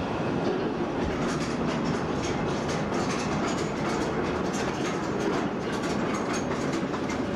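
Water ride's boat carried along in the dark: a steady mechanical clatter of rapid clicks over rushing water.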